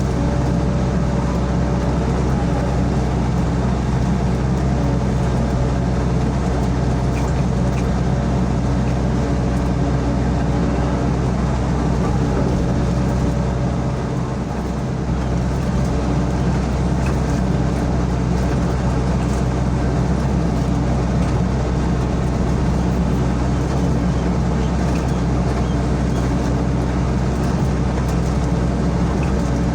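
Sany SY55C mini excavator's diesel engine running steadily under work, dipping briefly about halfway through.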